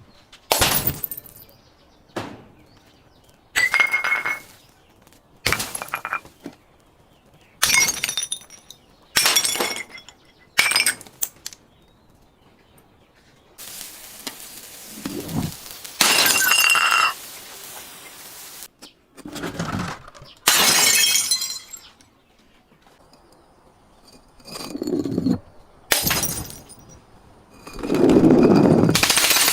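Glass bottles and other objects being smashed or crushed one after another: about a dozen separate crashes and crunches, some with a bright shattering ring. About halfway through, a longer hissing, crackling stretch lasts several seconds.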